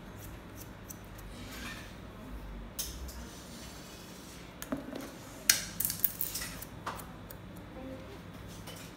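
Hairdressing scissors snipping hair: a few scattered sharp metallic clicks, with a quick cluster about five and a half seconds in.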